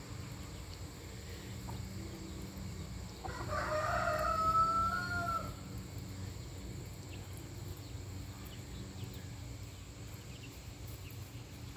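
A rooster crows once, a single long call of about two and a half seconds starting about three seconds in.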